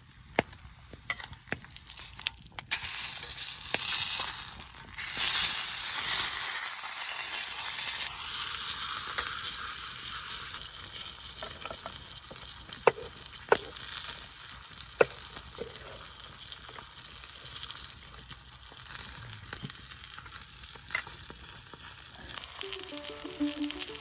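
Food frying in a hot pan over a campfire. The sizzling starts suddenly about three seconds in, loudest for the next few seconds, then settles into a steady sizzle with a few sharp pops. Music comes in near the end.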